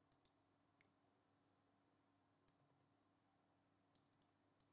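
Near silence: faint room tone with a few scattered, faint clicks.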